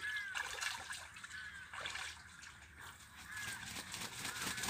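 Domestic geese splashing and sloshing the water as they bathe in a small concrete pool, with a few faint short chirps over it.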